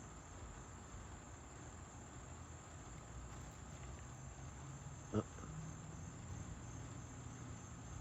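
Steady insect chorus, a faint, even high-pitched buzz, with one sharp click about five seconds in.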